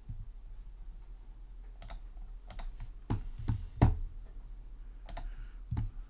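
About eight irregular, sharp clicks of a computer mouse, the loudest a little past the middle, over a faint steady low hum.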